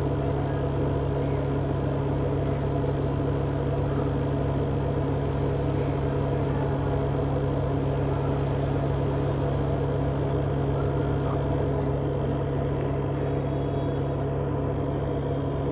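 Whirlpool Ace XL 9 kg semi-automatic washing machine with its empty spin drum spinning: a steady motor hum with a strong low tone. There is no fault noise while it runs at speed; this machine's noise comes only as the spin stops.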